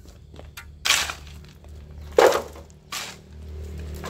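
Shovel blade scraping into a pile of soil and rubble, three strokes: one about a second in, a louder one just after two seconds, and a short one near three seconds.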